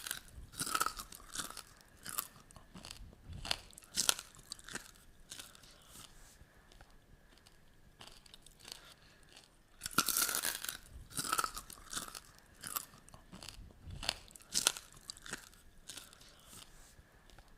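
Crisp pork rinds crunching as they are bitten and chewed. A dense burst of crunching comes at the very start and another about ten seconds in, each followed by a run of sharp crunches that thin out.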